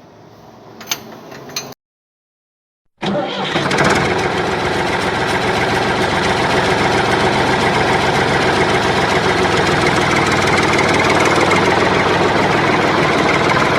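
A few light clicks, then after a short silent gap an engine starts up abruptly, about three seconds in, and runs steadily at an even speed.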